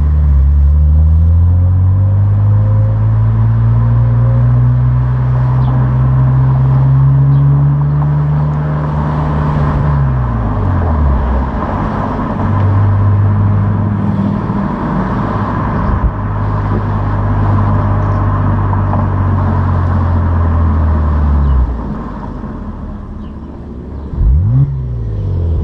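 Opel Insignia OPC's turbocharged V6 through its stock exhaust, pulling under acceleration with the engine note rising steadily for about nine seconds. The pitch then drops sharply and holds steady for around ten seconds before the revs fall away, with one quick rise in revs near the end.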